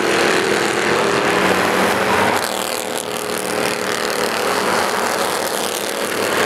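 A field of Bandolero race cars lapping the oval, their small single-cylinder engines buzzing together as a continuous drone, with several pitches drifting up and down as the cars come off and go into the turns.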